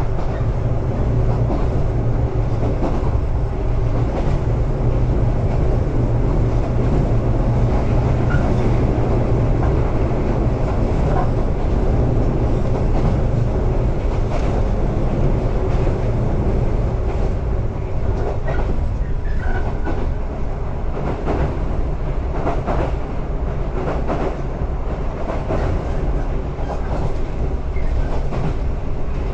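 115 series electric multiple unit running, heard from inside the car: a steady low hum and rumble from the running gear, with clicks of the wheels on the rails.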